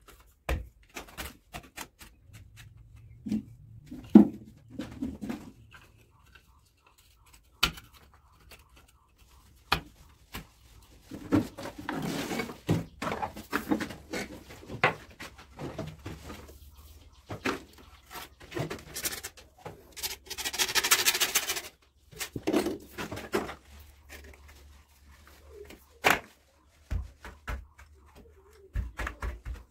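Scattered clicks, knocks and rustling from hand work fitting PVC electrical conduit and its clips against a brick wall, with a stretch of scraping noise about twenty seconds in.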